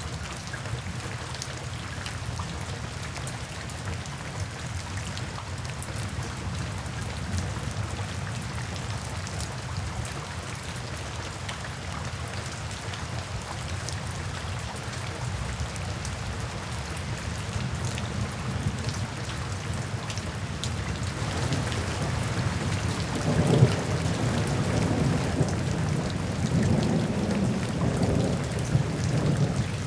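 Steady rain falling, with a low thunder rumble building about two-thirds of the way in and growing louder toward the end.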